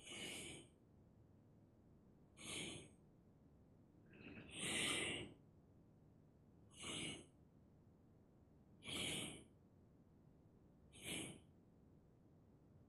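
A person breathing audibly in a steady rhythm during qigong exercise, one short hissing breath about every two seconds.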